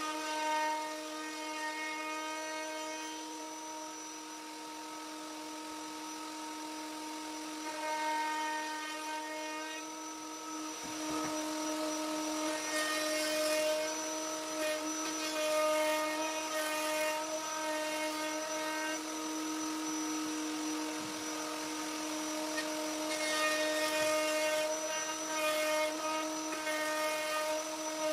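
Table-mounted wood router running at a steady high whine, with rougher cutting noise in stretches as a red cedar board is fed across the bit.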